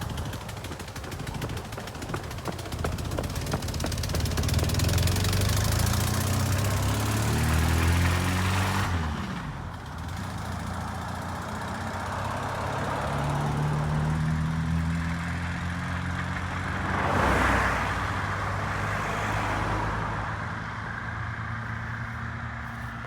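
Chevrolet S10 pickup driving along the road, its engine revving and climbing in pitch as it accelerates, with a sudden pitch drop about nine seconds in. It climbs again, passes close and loudest around seventeen seconds in, then fades away. The engine is known to run poorly.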